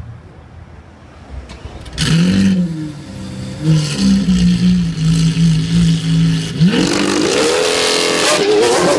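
Lamborghini Aventador's 6.5-litre V12 starting about two seconds in with a quick flare of revs, then settling to a steady high idle. Near the end it is revved up hard, the pitch climbing and held high.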